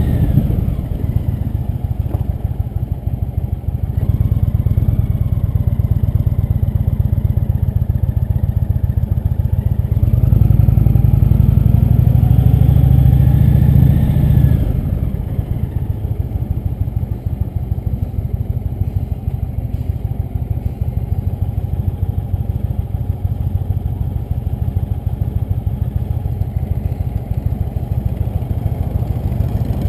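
Cruiser motorcycle engine running at low speed, pulling louder for a few seconds about a third of the way in, then dropping back to a quieter, steady run for the rest.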